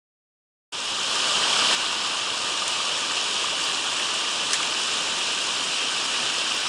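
Steady rush of a mountain headwater stream's flowing water, starting suddenly just under a second in after dead silence.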